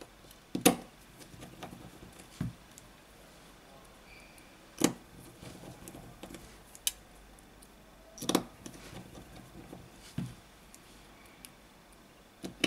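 Sharp clicks and taps of a precision screwdriver and small screws on a smartphone's plastic and metal frame, a handful of them a second or two apart, with faint handling noise between.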